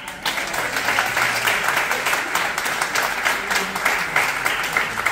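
An audience applauding: a dense round of many hands clapping that breaks out right at the start and keeps going steadily.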